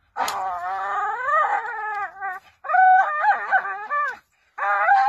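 Bull terrier howling and whining in long, wavering pitched cries: one long cry that rises and falls, then a run of shorter warbling cries, and another starting near the end.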